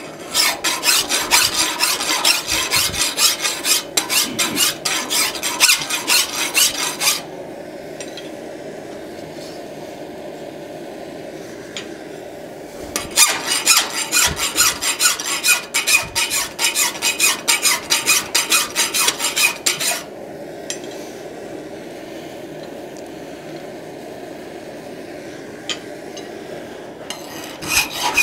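Hand file strokes rasping along the edge of a forged steel hinge strap clamped in a filing vise, smoothing the bevel. Two spells of quick, even strokes of about seven seconds each, with pauses between, and the filing starts again near the end.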